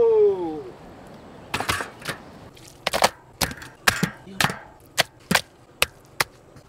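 Kitchen knife chopping on a wooden cutting board: about a dozen sharp knocks, irregular and roughly two a second, starting a little after the first second.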